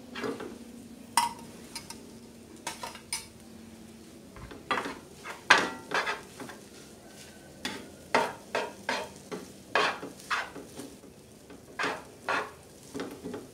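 Wooden spatula stirring and turning cooked rice in a non-stick frying pan, knocking and scraping against the pan in irregular strokes that come more often from about halfway on.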